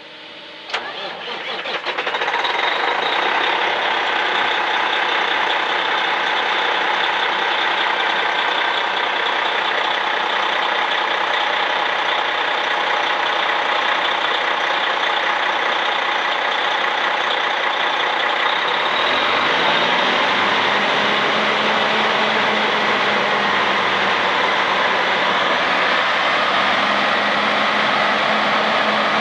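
A 2018 Western Star 4900XD truck's diesel engine starting, building up over the first couple of seconds, then running steadily. About two-thirds of the way through, a steady low hum joins in.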